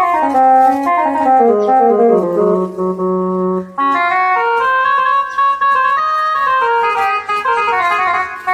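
Casio CT-X series portable keyboard playing a melodic phrase in one of its General MIDI tones: a descending run settles on a held low note, then about four seconds in a new, higher phrase begins.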